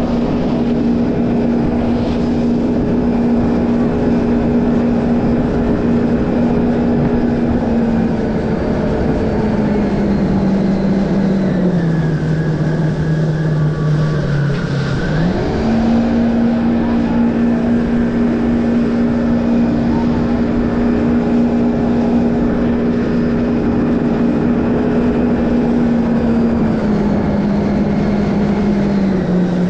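Jet ski engine running at a steady cruising pitch over a constant rushing noise. About a third of the way in it slows off the throttle, and about halfway it revs sharply back up. It eases down a little again near the end.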